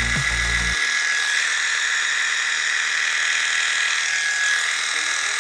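Electric pet hair clipper running with a steady buzz as it shaves a cat's fur.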